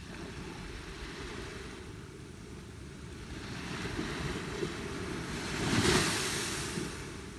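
A sea wave surging in and breaking on the shore, a rushing hiss that builds for a few seconds, peaks about six seconds in and falls away. A steady low wind rumble on the microphone runs underneath.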